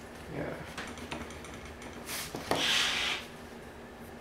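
Pencil strokes rubbing across sketch-pad paper: a faint one near the start, then a brief one and a longer, louder one a little after two seconds in.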